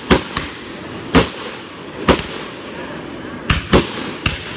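Aerial fireworks bursting overhead: about seven sharp, loud bangs at uneven intervals, some in quick pairs, over a steady background of noise between them.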